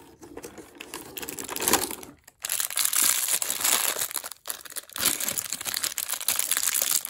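A black foil blind bag being crinkled in the hands and torn open. Softer rustling in the first two seconds, then loud crinkling in stretches with short pauses.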